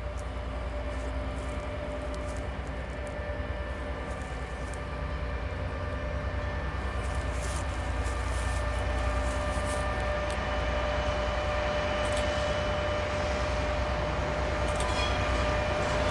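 FS D.445 diesel-electric locomotive approaching at the head of a container freight train, its diesel engine droning steadily and slowly growing louder as it nears. A thin high tone comes in near the end.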